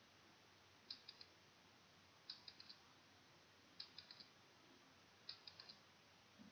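Countdown timer ticking effect: four faint clusters of quick clicks, about four clicks each, repeating every second and a half.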